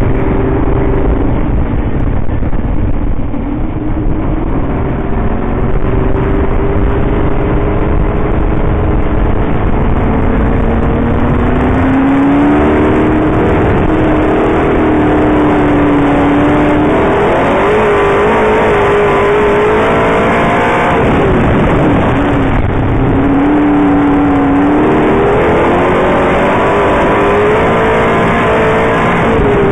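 358 small-block V8 of a dirt modified race car, heard on board at racing speed: the engine note climbs and falls again and again as the throttle goes on along the straights and eases off for the turns.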